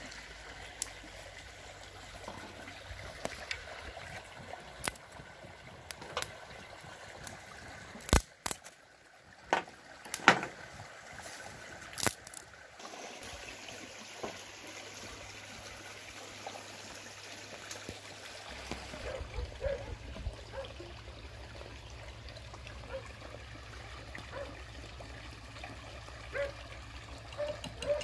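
Small wood fire of shavings and twigs crackling, with sharp pops and the knocks of sticks being laid across it.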